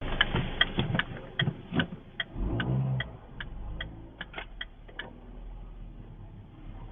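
Strange noise from a car: a run of sharp clicks, about two to three a second, that stops about five seconds in, with a short low hum around two and a half seconds in.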